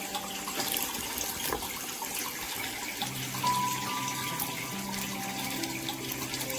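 Background music with held notes over a steady hiss, like running water.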